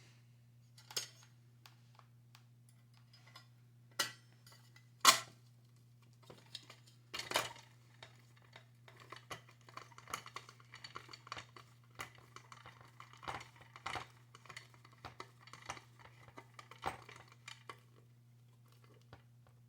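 Metal clicks and clinks of screws and a screwdriver being worked against the water heater's metal parts while the screws are driven back in. Sharper knocks come about 4, 5 and 7 seconds in, then a run of small ticks, over a steady low hum.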